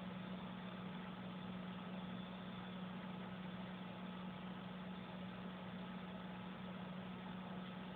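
A steady low hum with an even hiss behind it, unchanging throughout.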